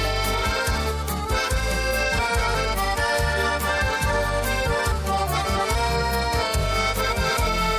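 Instrumental folk music led by accordion, with a steady bass beat about twice a second, in a passage without singing.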